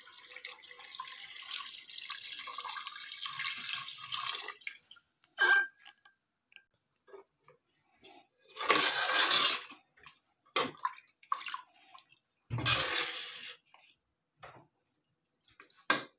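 Water poured into a pressure cooker pot over chicken pieces, a steady splashing pour for about four and a half seconds. Then come a few shorter splashes and knocks as the contents are stirred with a ladle.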